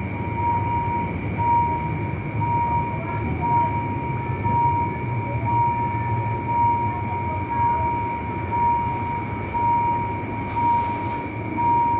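Level-crossing warning signal sounding a tone about once a second, over the steady low rumble of a train passing over the crossing.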